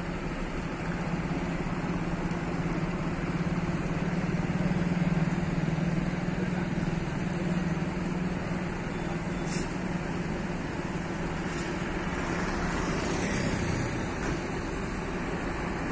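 Intercity coach's diesel engine running steadily, swelling in the middle as the bus moves off from the departure bay. There is a brief hiss about nine and a half seconds in.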